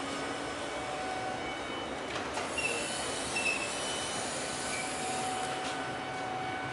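Steady mechanical whirring noise with a few faint steady tones. A few brief high squeaks come about halfway through.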